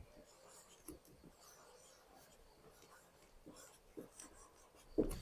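Nearly silent room with a few faint, short scratches and taps: about a second in, about four seconds in, and a slightly louder one just before the end.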